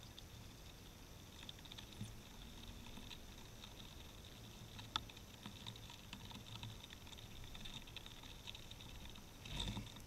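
A squirrel feeding on sunflower seeds in frozen snow right beside the microphone: faint, irregular small clicks and crunches of husks and icy snow, with one sharper click about halfway through. Near the end there is a brief, louder rustling thump as the squirrel moves off.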